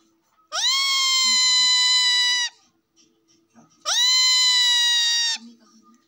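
Indian ringneck parakeet giving two long, drawn-out calls, each rising quickly at the start and then held at a steady pitch; the first lasts about two seconds and the second about a second and a half.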